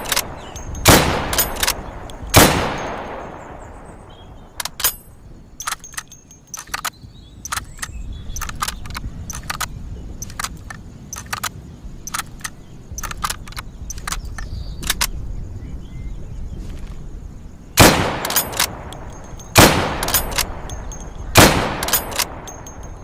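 Lee-Enfield No. 4 .303 bolt-action rifle firing: two shots with echoing tails in the first few seconds, then a long run of sharp metallic clicks and clacks as the action is worked, then three more shots about two seconds apart near the end.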